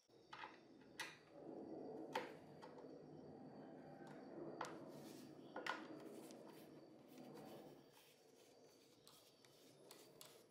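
A screwdriver turning out the screws of a Homelite 150 Automatic chainsaw's plastic starter cover: faint steady scraping, with several sharp clicks of the tool against the screws and cover.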